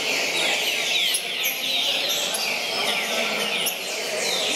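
Several caged green-winged saltators (trinca-ferro) singing at once: dense, overlapping phrases of quick downward-sliding whistled notes, with no pause.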